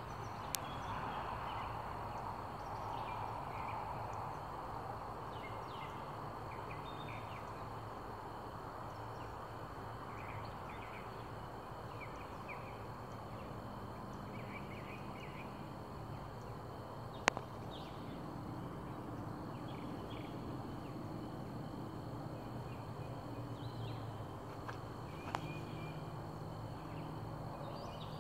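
Outdoor background noise with faint short chirps, probably birds, scattered through it and a thin steady high tone. Three sharp clicks stand out: one right at the start, the loudest a little past the middle, and another near the end.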